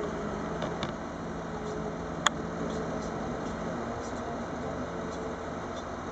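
Engine of the timber-loading machinery running steadily while a Jonsered timber crane lifts and swings a log, its low hum changing almost four seconds in. A single sharp click about two seconds in.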